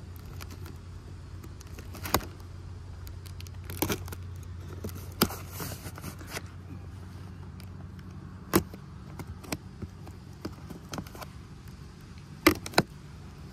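Cardboard shipping box being cut and torn open by hand: scattered crackles and short sharp rips of tape and cardboard, the loudest about 2, 4, 8.5 and 12.5 seconds in. A steady low hum runs underneath.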